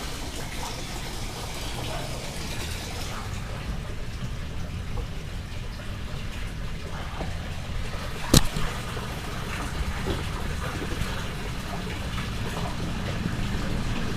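Steady running-water noise while a sump pump is handled in the water for reattachment, with one sharp knock about eight seconds in.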